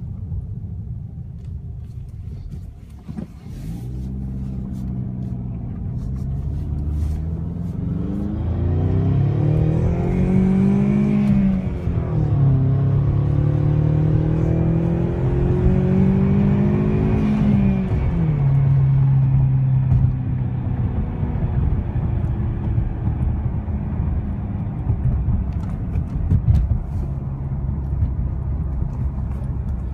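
2015 Ford Mustang EcoBoost's 2.3-litre turbocharged four-cylinder engine heard from inside the cabin. Its pitch climbs slowly for several seconds and dips near the middle, then climbs again. It falls back and settles to a steady, lower drone for the rest.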